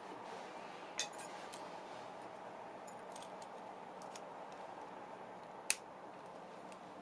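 Metal key-hook clip and snap hardware of a leather keychain handled by hand: small metallic clinks, with a sharp click about a second in and a louder one near the end.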